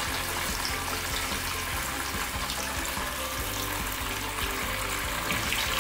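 Block of pressed tofu deep-frying in hot oil in a stainless steel pan: a steady sizzle and bubbling as the water in the tofu boils into the oil, with a low hum underneath.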